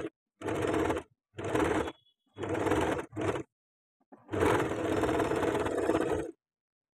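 Electric domestic sewing machine stitching fabric, running in short bursts of under a second with brief stops between, then a longer run of about two seconds.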